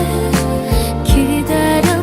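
Korean pop ballad music with a steady drum beat and a bass line.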